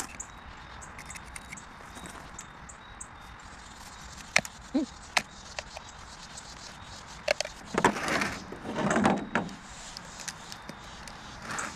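A knife cutting through a thin plastic jack-o'-lantern shell and the plastic being pried off a hardened concrete pumpkin cast: a few sharp clicks and snaps, then two longer rasping scrapes in the second half.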